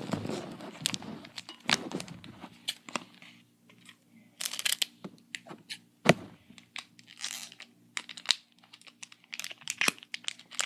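Foil wrapper of a Pokémon card booster pack crinkling and tearing as it is cut open with scissors, in irregular sharp snips and rustles, over a faint steady hum.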